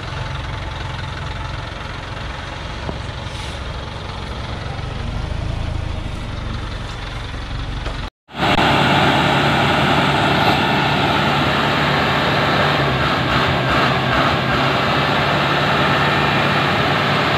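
Diesel engine of a Dongfeng logging truck running slowly as it creeps around a tight bend. About eight seconds in, the sound cuts out for an instant and comes back louder and closer, a steady engine drone.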